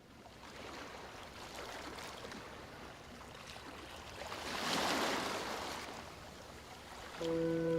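Sea waves: a wash of surf swells up to a peak about five seconds in and draws back. Soft music comes back in near the end.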